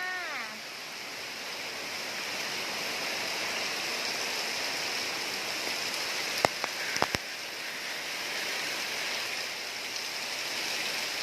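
Heavy rain pouring steadily in a windy rainstorm, with a few sharp knocks about two-thirds of the way through.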